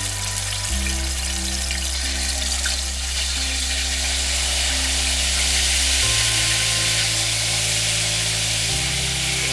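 Marinated chicken pieces sizzling as they go into hot cooking oil in a pan, a steady frying hiss. Background music of low held chords runs under it, changing chord about a second in, and twice more near the end.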